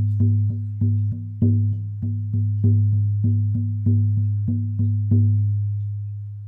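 Buffalo-skin frame drum on an oak frame, struck in a steady beat of about three strokes a second, each stroke ringing with a deep low tone. The beating stops about five seconds in and the last stroke rings on, fading away.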